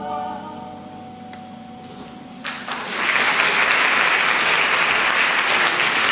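The last held notes of a song's accompaniment fade out, then audience applause breaks out about halfway through and continues loudly.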